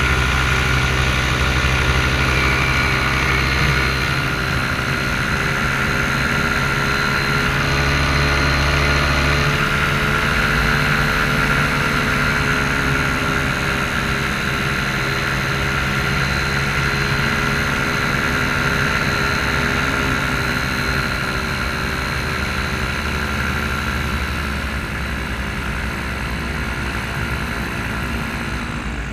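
Paramotor engine and propeller running steadily in flight. In the last few seconds the engine's pitch sinks and it grows a little quieter as the power comes back.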